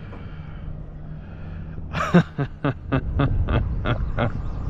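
A man laughing in a run of about eight short, rhythmic pulses starting about halfway through, over a steady low hum.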